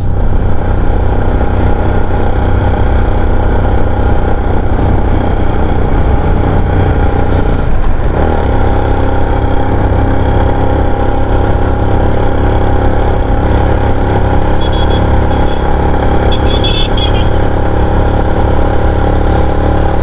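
Motorcycle engine running steadily under way, its note shifting slightly about eight seconds in.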